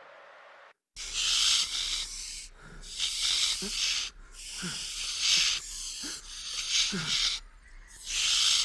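Barn owl chicks' rasping, hissing begging calls, starting about a second in and repeating as a string of drawn-out hisses, roughly one a second.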